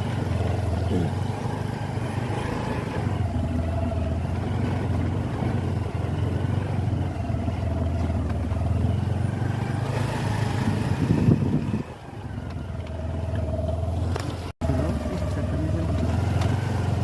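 Vehicle engine running steadily on the move, with road and wind noise. The sound dips briefly about twelve seconds in and cuts out for an instant a little later.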